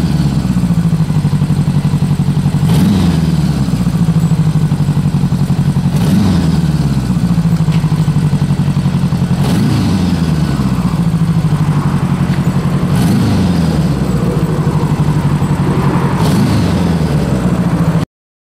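Motorcycle engine idling, blipped with a short rev roughly every three and a half seconds, five times, pitch rising and dropping back to idle each time. The sound cuts off suddenly just before the end.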